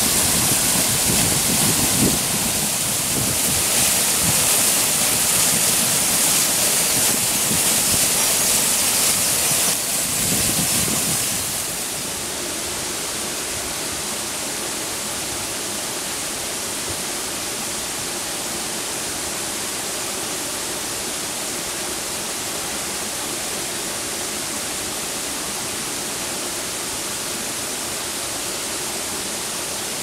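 Waterfall pouring down rock: a steady rushing hiss. It is louder and brighter for the first eleven seconds or so, then settles a little quieter and duller at about twelve seconds.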